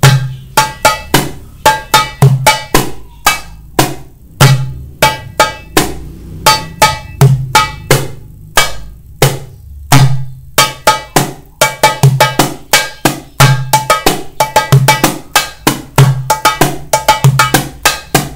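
Darbuka (goblet drum) played by hand in a rhythmic variation pattern: deep dum strokes mixed with sharp tek and ka strokes and slaps. The strokes come thicker and faster from about halfway through.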